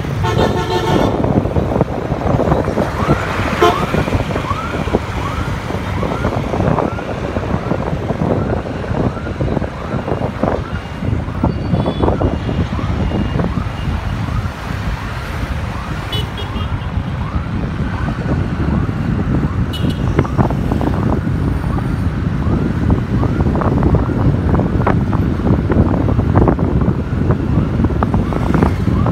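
Steady road-traffic noise, mostly motorbikes and scooters passing on a busy road. A vehicle horn sounds about a second in, and there are a couple of short toots later.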